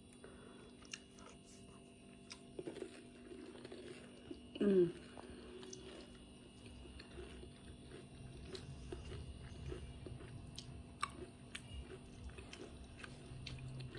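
A person chewing a mouthful of chaat papdi, with soft small mouth clicks throughout. About five seconds in comes a short hummed "mm" that falls in pitch.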